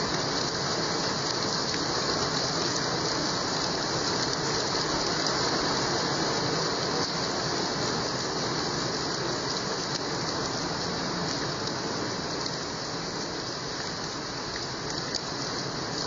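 Heavy rain falling steadily on wet, muddy ground.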